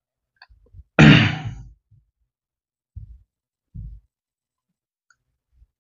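A man's short, breathy vocal sound about a second in, like a sigh or heavy exhale, fading over under a second. Two soft, low thumps follow a little under a second apart.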